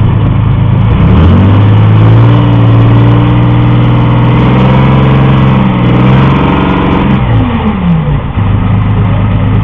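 Engine of a tracked armoured vehicle revving up about a second in and held at high revs as it pulls forward, then dropping back near the end.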